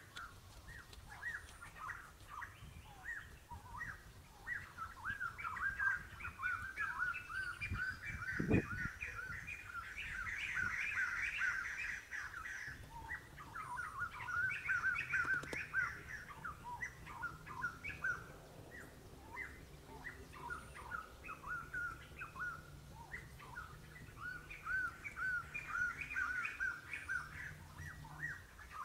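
Small birds chirping continuously, a dense chorus of short repeated chirps. A single dull thump about eight seconds in.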